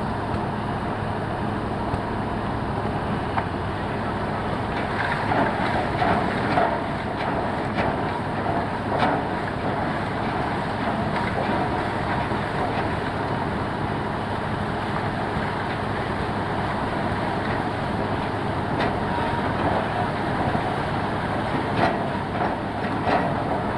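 Heavy construction machinery, a concrete mixer truck and a bore pile drilling rig, running steadily while a bore pile is concreted. Scattered metallic clanks and knocks come over the engine hum, mostly a few seconds in and again near the end.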